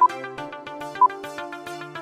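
Two short, loud, high beep tones a second apart, like film-leader countdown beeps, over electronic music with a steady beat.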